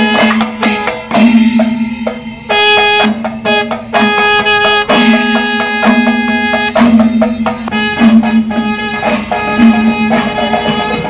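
Kerala temple percussion ensemble playing loudly: chenda drums beaten in rhythm while a wind instrument plays a melody of held notes over them.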